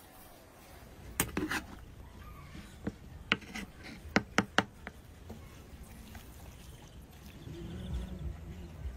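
Metal ladle clinking against a metal serving tray and plate while scooping rice and chicken. There is one clink about a second in, then a run of sharp clinks, three of them in quick succession, and low handling bumps near the end.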